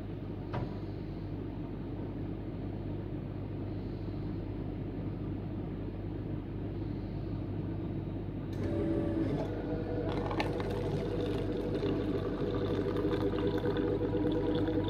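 Coin-operated coffee vending machine brewing a cup of black coffee. It starts with a steady mechanical hum; about eight and a half seconds in, it grows louder and busier, with a motor whirring and coffee pouring into the paper cup.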